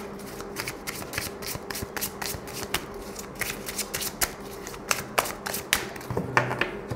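A tarot deck being shuffled by hand: a run of quick, uneven card flicks and taps, several a second.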